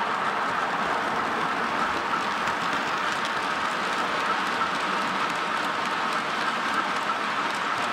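Model train running on a layout: a steady whirr with faint clicking from the wheels over the track.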